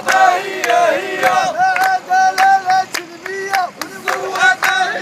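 Crowd of protesters chanting slogans together in loud, sung unison, punctuated by sharp percussive hits.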